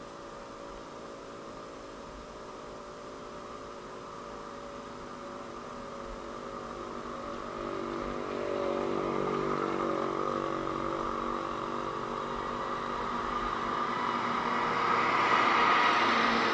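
A motor vehicle's engine growing steadily louder as it draws near, loudest near the end.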